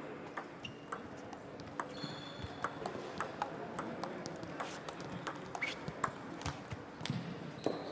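Table tennis rally: a fast, uneven run of sharp clicks as the ball strikes the bats and the table in turn. Fainter clicks from neighbouring tables sound in a large, echoing sports hall.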